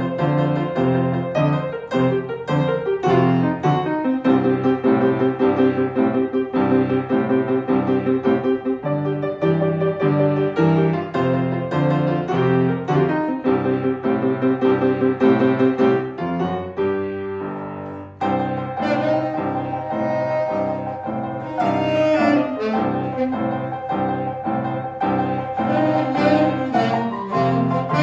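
Instrumental blues band demo with piano chords over bass. After a brief dip in loudness about two thirds of the way through, a saxophone comes in with long held notes.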